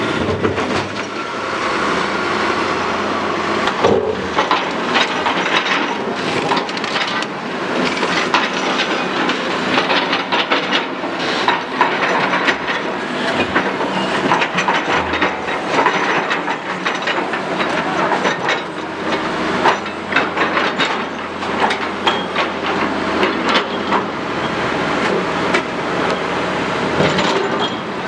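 Heavy quarry machinery working marble blocks: continuous loud grinding and scraping, thick with crackling and clanking knocks.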